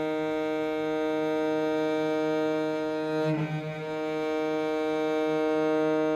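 Bass viola da gamba sounding one steady open-string note, bowed very slowly for an even tone from one end of the bow to the other. About three seconds in there is a brief break at the bow change, and the same pitch carries on in the other direction.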